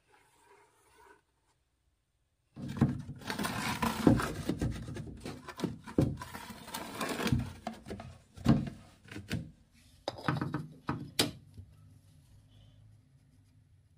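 After a couple of quiet seconds, a long run of handling noise as a laminate floor board and tools are laid down and shifted on a hard floor: scraping and rubbing with many knocks, and a few sharp clacks near the end.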